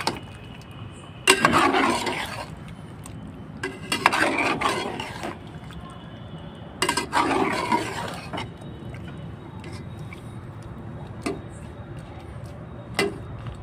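A spatula scraping and stirring chicken pieces in thick masala in an aluminium pot: three long scraping strokes about three seconds apart, then two light clicks of the spatula on the pot near the end.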